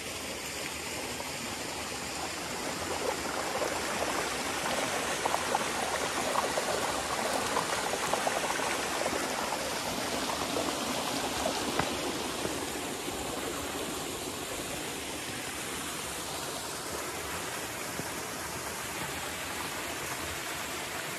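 The water of a mountain torrent, the Arcinasso, rushing and splashing over small cascades into rock pools. It is a steady rush, a little louder and more splashy for a stretch in the middle.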